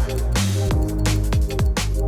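Electronic drum and bass music with a fast, steady beat of falling-pitch kick drums and a sustained deep bass line.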